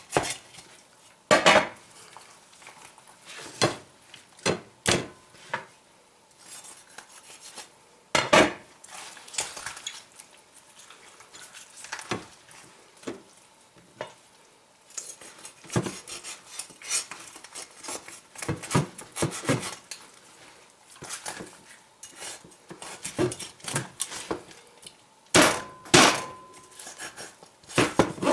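Irregular sharp knocks and scrapes as a French billhook cuts into a raw, partly frozen whole chicken on a plastic cutting board, with the bird being handled and turned between strokes. The loudest knocks come about a second and a half in, around eight seconds in, and near the end.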